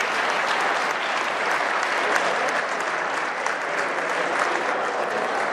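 A large crowd applauding with steady clapping.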